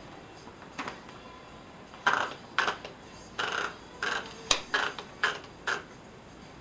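A 1949 Hermes Baby portable typewriter clacking as it is worked: about ten short, uneven strokes beginning about two seconds in, with one sharper click near the middle.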